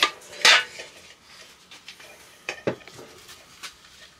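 Metal clanks and clinks from an aluminium clamp-lamp reflector being handled while its bulb is unscrewed: two sharp clinks in the first half second, then a duller knock and a few light ticks.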